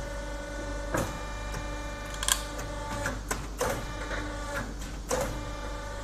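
Silicone wristband molding press running: a steady hum from its motor and hydraulic pump, with five or so sharp metallic clicks and knocks scattered through it.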